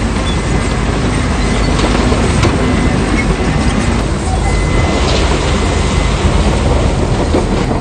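Heavy earthmoving machinery working: a diesel engine running loud and steady, with a few metallic clanks.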